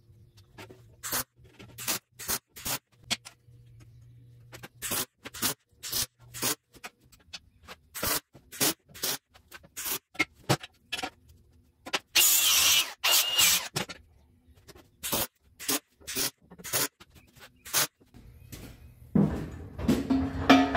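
MIG welder laying short tack and stitch welds on mild-steel tube, a string of brief crackling bursts about one or two a second, with one longer continuous crackle about 12 seconds in. Near the end, steel tube knocking and clunking as it is handled.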